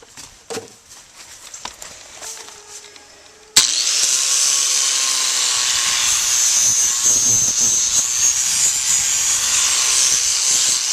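A few light knocks and rustles, then about three and a half seconds in an electric power grinder switches on abruptly, its motor spinning up, and runs steadily, grinding a bevel into the wall of a horse's hind hoof.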